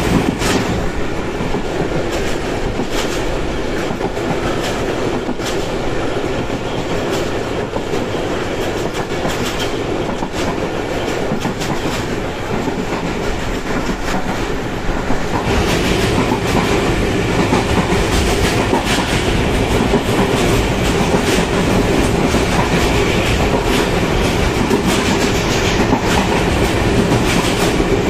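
Train running at speed: a steady rumble of wheels on the track with the clickety-clack of rail joints. It grows louder about halfway through.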